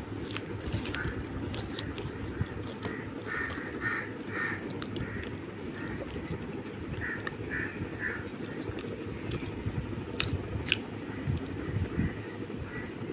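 Crisp paneer dosa being torn by hand and bitten, with scattered crackling clicks. A bird caws in short runs of two or three calls several times over a steady low hum.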